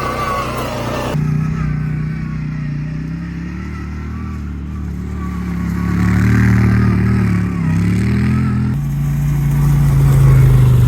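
A vehicle engine running, its low pitch dipping and rising again a little past the middle, with sudden changes in the sound about a second in and near the end.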